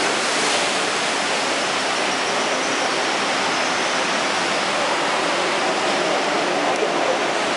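Ocean surf washing over rocks in a sea cave: a steady rush of water with no break.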